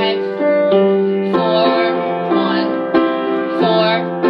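Upright piano playing block major chords in a I–IV–V progression in C major. About five chords are struck, each held for under a second before the next.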